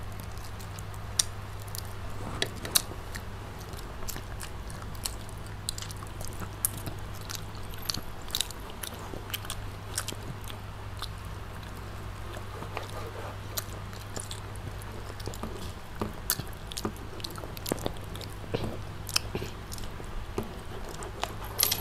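Two children biting and chewing fried chicken close to clip-on microphones, with many small sharp crunches and clicks scattered throughout. A steady low hum runs underneath.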